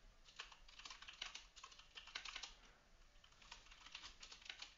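Faint computer keyboard typing: quick runs of keystrokes, with a short pause a little past halfway before the keys start again.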